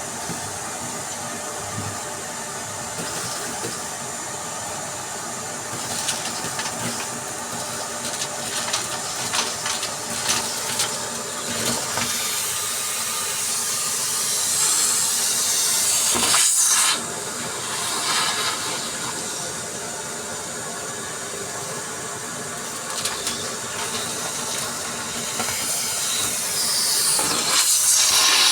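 Vacuum cleaner running steadily while sucking up crunchy debris, which crackles and clicks over the airflow hiss. The hiss swells and cuts off sharply about seventeen seconds in, then swells again near the end.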